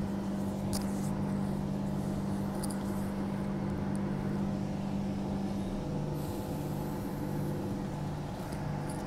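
Transperth A-series electric multiple unit running, heard from inside the carriage: a steady low hum with rumble and a few light clicks. About six seconds in, the hum changes to a note that pulses on and off.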